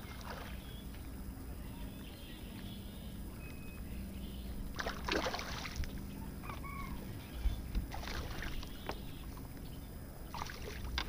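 A hooked bass splashing and thrashing at the water's surface beside the boat in three short bursts, about five, eight and ten seconds in, over a steady low hum.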